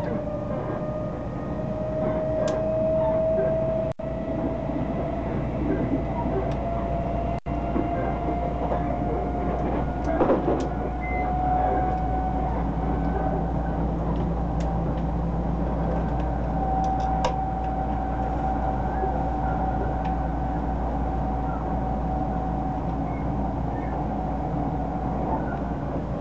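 Odakyu Line electric train heard from inside the carriage while running at speed: a steady rumble of wheels on rails under a motor whine that rises slowly in pitch, then holds level. A few light clicks along the way.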